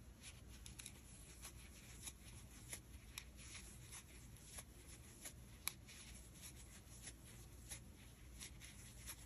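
Faint rustling and light ticks of a crochet hook working chunky acrylic yarn as extended single crochet stitches are made, with one sharper tick a little past halfway.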